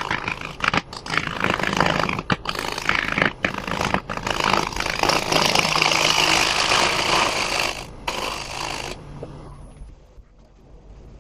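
A hand tool working the spinning wood of a bowl on a lathe: a harsh scraping hiss with brief breaks, stopping about nine seconds in.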